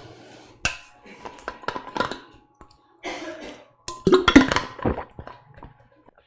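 Stainless steel water bottle being handled: scattered metallic clicks and knocks as it is opened, then louder sounds of drinking from it about four seconds in, and the cap being handled near the end.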